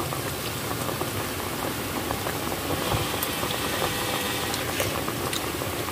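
Malunggay (moringa) leaf soup boiling in a metal pot: a steady bubbling, with a few faint clicks in the second half.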